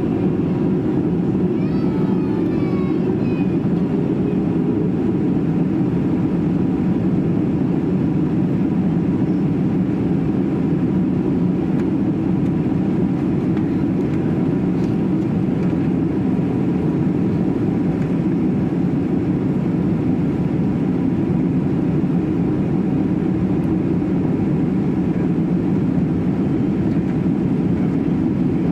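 Boeing 767 cabin noise in flight: the jet engines and the airflow over the fuselage make a steady, loud, even rumble heard inside the cabin. A steady hum within the rumble stops about three seconds in.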